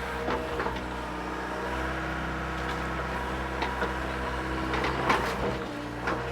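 Mini excavator's diesel engine running steadily with the hydraulics working, heard from the cab, with a few short knocks and clatters as the pulled tree stump is shaken in the bucket to knock the dirt off it.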